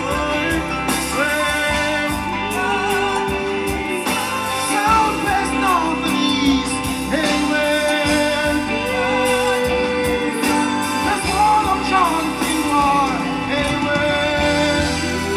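Live reggae band playing, with sung melody lines over it.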